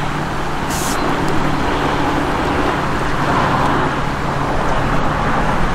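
Steady rush of river water running over rocks, with a faint steady low hum underneath.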